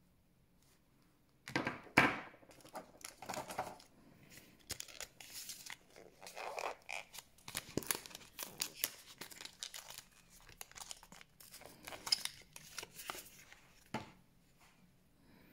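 Packaging crinkling and tearing as it is opened by hand, in irregular bursts from about a second and a half in, with a sharp click near the start and another near the end.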